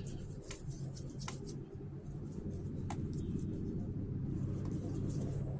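Palm rolling a ball of bread dough in circles on a silicone baking mat: a soft, uneven rubbing over a steady low hum, with a few light ticks.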